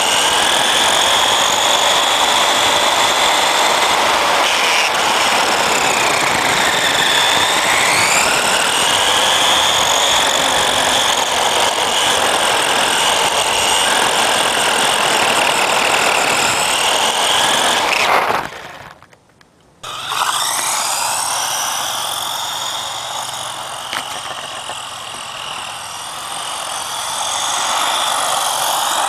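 Vintage Marui Samurai electric RC car's motor and gears whining at speed over the rush of its tyres on asphalt, heard close from a camera mounted on the car, the pitch dipping and rising again as it slows and speeds up. About two-thirds in the sound cuts to near silence for a second or two. The same whine then comes back fainter, heard from beside the road as the car runs down the street.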